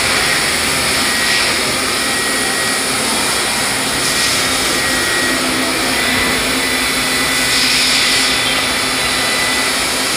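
Steady machine-shop noise from CNC lathes running: an even, loud hiss and hum with a faint steady tone underneath, swelling briefly with higher hiss a few times.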